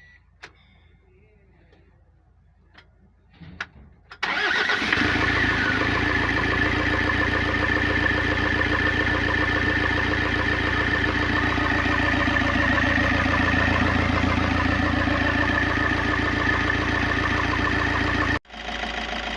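Freshly rebuilt Toyota 2KD four-cylinder turbodiesel starting about four seconds in and then idling steadily, with a high whine over the diesel running. The engine has a new high-pressure fuel pump and repaired injector nozzles, and the mechanic calls its sound very beautiful and steady. It cuts out briefly near the end.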